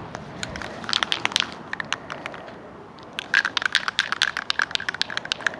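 Spray paint can being shaken, its mixing ball rattling in quick runs of metallic clicks: a short run about a second in and a longer, ringing one over the last two seconds.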